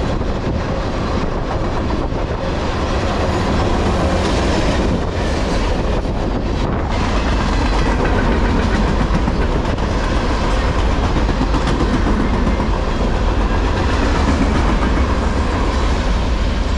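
Freight train cars rolling past on the near track, first tank cars and then container flatcars, with a steady, loud rumble of wheels on rail and a few sharper clicks between about four and seven seconds in.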